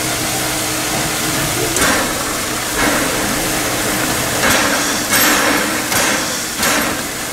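Narrow-gauge 2-10-2T steam tank locomotive standing while taking water: a steady hiss of steam over a low hum, broken by about six short, louder bursts of hissing and knocking at uneven intervals.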